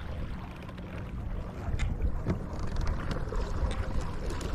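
Water rushing along the hull of a small fishing boat under way, with wind noise on the microphone.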